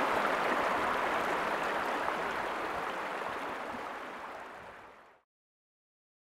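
Shallow river running over rocks and stones, a steady rush of water that fades out and stops about five seconds in.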